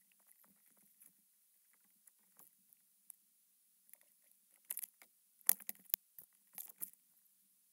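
Stand-up paddle strokes in calm river water: faint scattered drips and clicks, then three bunches of sharp splashes and knocks in the second half.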